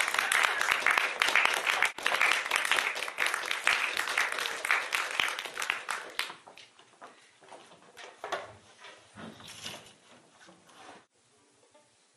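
Audience applause: dense clapping for about the first six seconds, thinning to scattered claps, then cutting off suddenly about eleven seconds in, leaving quiet room tone.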